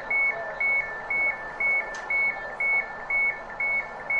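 London Overground Class 710 train door warning beeps: a two-tone high-low beep repeating about twice a second over the steady noise of the train.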